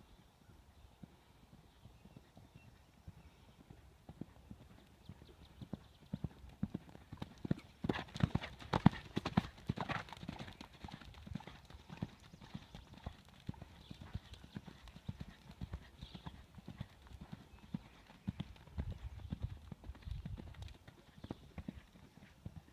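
Hoofbeats of a large gray pony moving: a continuous run of hoof strikes, loudest about eight to ten seconds in.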